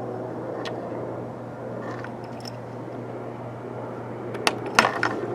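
Steady rumble and hiss of a passing train, with a few sharp clicks about four and a half to five seconds in.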